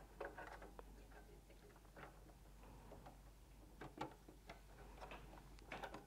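Faint, scattered plastic clicks and handling of small plug connectors being fitted into the control terminal sockets of a Danfoss iC7-Automation AC drive.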